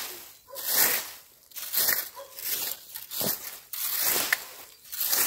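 Wire fan rake dragged through dry fallen leaves and soil in repeated strokes, about one a second, the leaves rustling with each pull.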